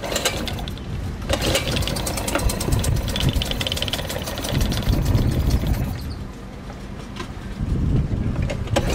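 Tohatsu 3.5 B2 single-cylinder two-stroke outboard being pull-started on the choke: a couple of cord pulls, then the engine catches and runs unevenly. Its sound dips about six seconds in and picks up again near the end.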